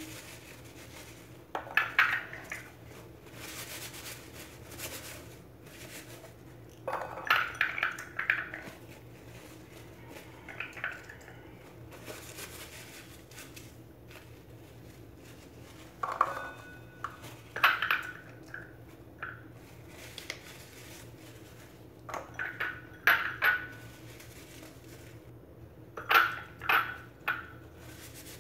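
Peeled garlic cloves and a paper towel clinking and knocking against small ceramic and stainless-steel bowls as the cloves are wiped dry and dropped into the steel bowl. The clinks come in short clusters every few seconds, some with a brief ring.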